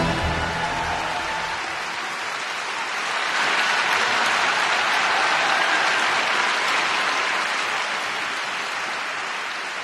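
Arena crowd applauding at the end of a figure skating program. The music dies away in the first second or two, and the applause swells about three seconds in, then slowly eases off.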